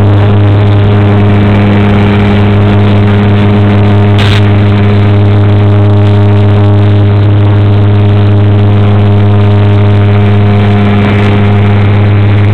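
Turboprop plane's propellers and engines heard from inside the cabin at takeoff power during lift-off and climb. They make a loud, steady drone built on a strong low hum with a row of overtones above it. A brief click comes about four seconds in.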